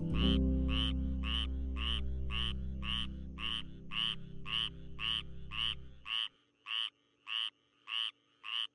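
Frog calling: a short croak repeated about twice a second, evenly spaced. A low steady drone sounds beneath it and stops about six seconds in.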